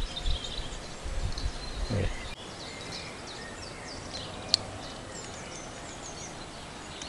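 Low buffeting on the microphone that cuts off abruptly about two seconds in, then a steady outdoor background of small birds chirping, with one sharp click about four and a half seconds in.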